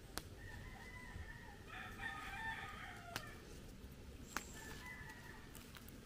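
A rooster crows once, faintly, about two seconds in. A few sharp snaps stand out around it as the sweet potato tops are picked off by hand.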